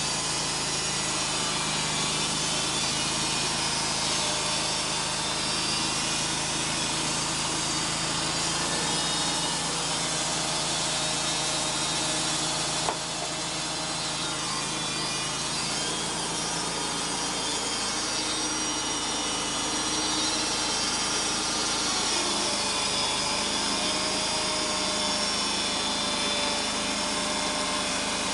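Wood-Mizer portable band sawmill cutting western red cedar: the mill's engine running under load while the band blade saws steadily through the log. A single sharp click about halfway through.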